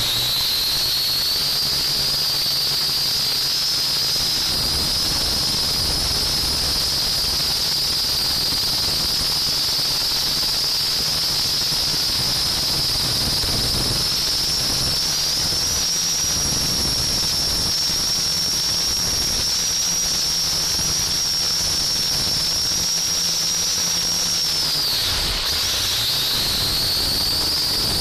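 Small quadcopter drone's motors and propellers running in flight, heard from the onboard camera: a loud steady hiss with a high whine over it. The whine dips in pitch about 25 seconds in, as the motors slow, then comes back up.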